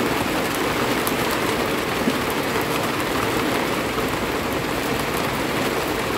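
Heavy rain falling steadily on plants and surfaces: a dense, even hiss with faint scattered drop ticks.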